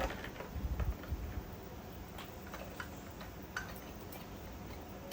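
Irregular small clicks and light knocks of hand tools working on metal engine parts, with a few duller thumps about a second in.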